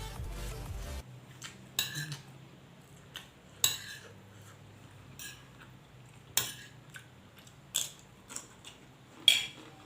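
Cutlery clinking against a plate while eating, a sharp clink every second or so. Background music runs for the first second.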